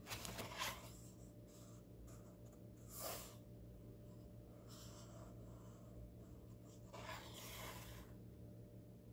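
Faint rubbing and rustling of a fingertip on a paper book page, in three short brushes: one at the start, one about three seconds in, and a longer one near the end. A steady low hum lies underneath.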